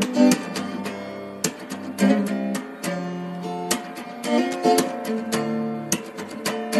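Background music: strummed and plucked acoustic guitar playing chords.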